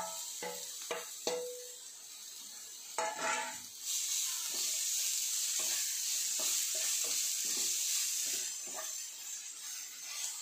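Sliced onions, green chilli, garlic and ginger sizzling in hot oil in a non-stick frying pan, stirred with a wooden spatula that scrapes and taps the pan bottom again and again. The sizzle grows louder about four seconds in.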